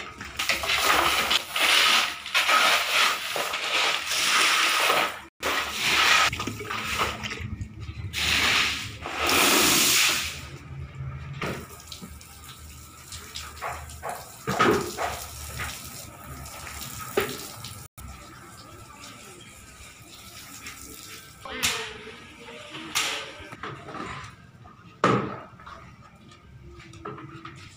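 Water from a hose spraying and splashing onto a heap of sand and cement being hand-mixed into concrete, with scattered knocks and scrapes from the mixing work.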